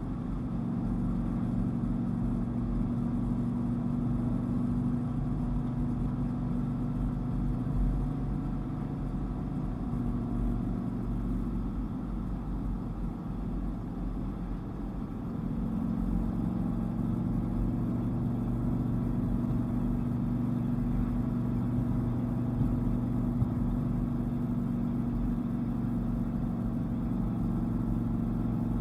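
Dodge Viper's V10 engine under way with road noise, a steady engine note that eases off for a few seconds about halfway and then picks up again.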